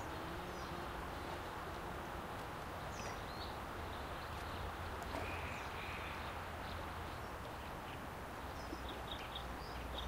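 Steady outdoor background noise with faint, scattered bird chirps.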